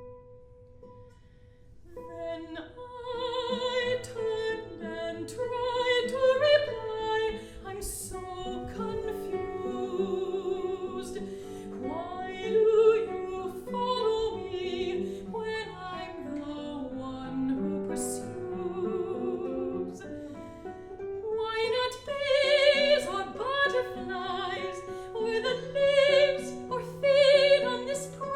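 Mezzo-soprano singing an art song with vibrato, accompanied by plucked guitar; the music picks up about two seconds in after a quiet held note.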